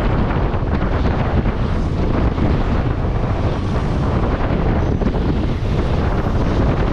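Wind buffeting the microphone: a loud, steady rumble and rush with no breaks.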